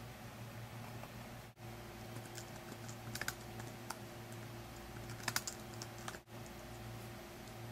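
Typing on a computer keyboard: a few short runs of key clicks, about three seconds in and again about five seconds in, over a faint steady hum.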